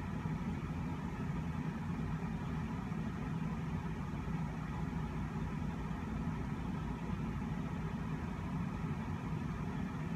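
Steady low background hum, with no distinct events and no change throughout.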